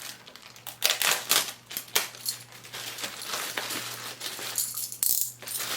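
A plastic parcel package being handled and opened by hand: irregular crinkling, rustling and sharp clicks, busiest about a second in, with a low steady hum underneath.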